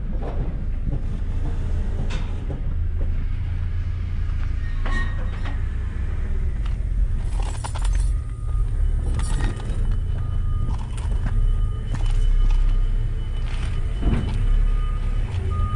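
A steady, fairly loud low rumble with scattered clicks and knocks. In the second half, short high beeps come and go about once a second over a fainter steady whine.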